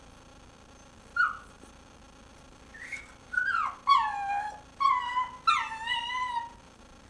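Dog whining: one short high whimper about a second in, then five or so whines in a row, each falling in pitch. The dog is begging for a bone that another dog is chewing.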